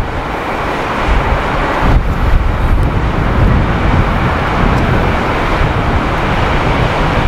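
Jet noise from an Airbus A320-214's CFM56 turbofans as the airliner lands and touches down: a steady rumble with uneven gusts of wind noise on the microphone.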